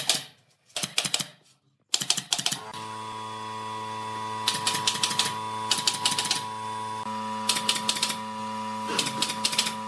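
Nail gun firing into pine slats in short bursts of several quick snaps, about six bursts spaced a second or more apart. A steady hum starts about two seconds in and runs underneath.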